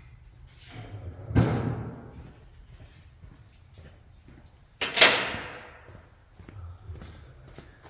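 Two heavy mallet blows on a car's rear drum brake assembly, knocking it loose. The blows come about three and a half seconds apart, and each rings out for about a second.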